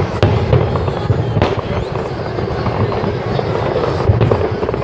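Aerial firework shells bursting one after another, deep booms mixed with crackling, with a sharp loud burst about a second and a half in.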